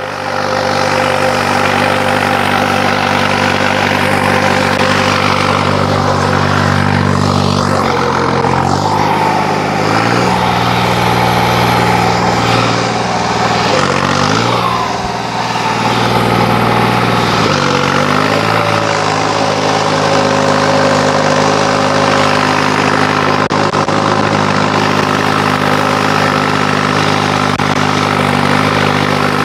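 New Holland 5620 tractor's diesel engine, its fuel pump settings modified, working under load pulling a cultivator through ploughed soil. Its engine note drops and rises and wavers for several seconds midway, then settles steady again.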